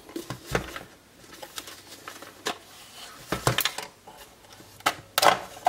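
Plastic trail-camera housing being unlatched and opened by hand: a series of sharp plastic clicks and knocks, the loudest cluster about five seconds in.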